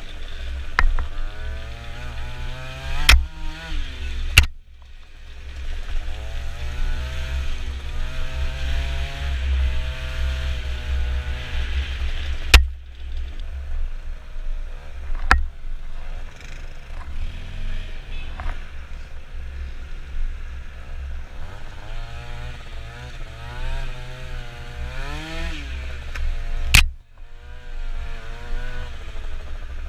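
Scooter engine revving up and down as the throttle opens and closes on a rough dirt track, with steady wind rumble on the microphone. A handful of sharp knocks from bumps cut through, and the engine briefly drops off after some of them.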